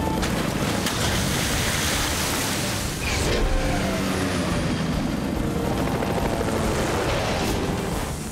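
Helicopter rotor and engine running steadily: a cartoon sound effect for a rescue helicopter flying with a water bucket slung beneath it.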